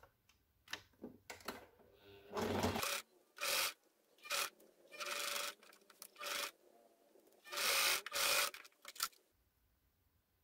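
Sewing at a domestic sewing machine, with fabric worked under the presser foot: about eight short bursts of noise, each under a second, from about two seconds in until about nine seconds in.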